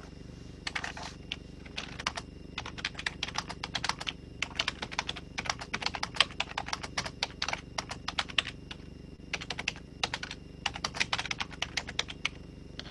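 Typing on a computer keyboard: runs of quick key clicks with short pauses between them and a longer break around 9 seconds in, over a faint steady low hum.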